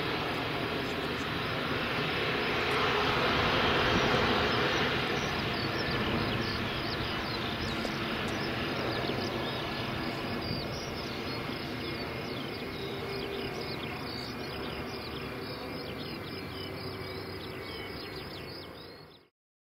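Airbus A320's twin IAE V2500 jet engines running as the airliner rolls out along the runway after touchdown: a broad rushing sound that swells a few seconds in, then slowly eases off before it cuts off sharply near the end. Many short high chirps sound through the second half.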